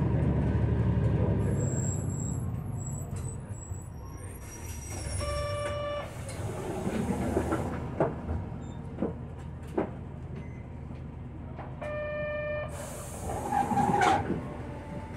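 Tokyu city bus interior: the diesel engine rumbles low, then a short buzzer tone and a hiss of compressed air come about five seconds in, typical of the pneumatic doors working at a stop. A few knocks follow, and near the end a second buzzer tone and another air hiss sound.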